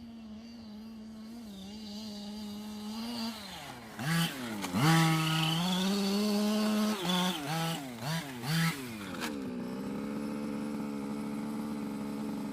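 Losi Mini WRC radio-controlled car's motor humming steadily. Its pitch dips and then climbs as the throttle is opened about four seconds in, followed by several short throttle blips before it settles back to a steady hum.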